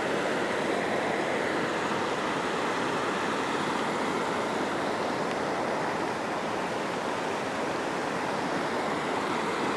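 Shallow, rocky river rushing over stones: a steady, even rush of water.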